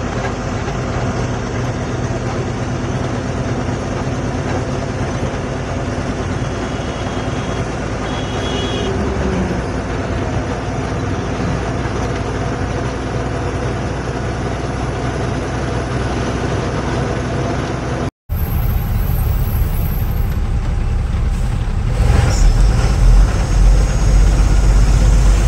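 Loaded goods truck's diesel engine and road noise heard from inside the cab while driving on the highway, a steady running drone. About two-thirds through the sound breaks off for a moment and resumes with a louder, deeper rumble.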